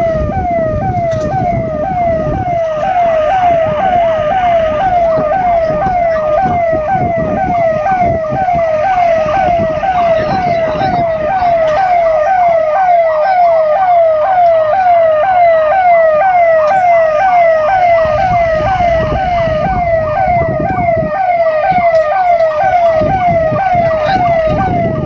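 Emergency vehicle's electronic siren on fast yelp, a quick rise-and-fall wail repeating about twice a second without break, over low road and engine rumble.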